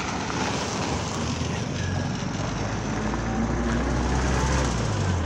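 A car driving past on the road: engine and tyre noise growing steadily louder as it comes near, with a low rumble that drops away suddenly just before the end as it goes by.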